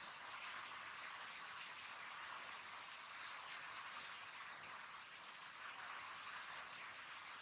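Heavy rain falling steadily, an even hiss of drops on the wet yard and surfaces.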